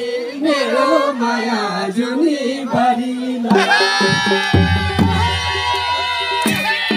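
Man singing a Nepali folk song into a microphone over a madal drum; about three and a half seconds in a long held reedy note from a wind pipe takes over, with the drum strokes continuing.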